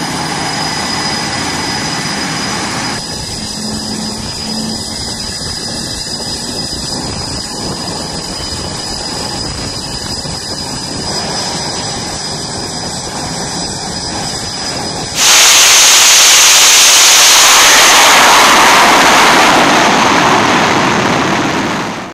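Jet engines on an aircraft carrier's flight deck: a steady roar with a high whine, then about 15 seconds in a sudden, much louder jet blast that slowly fades away near the end.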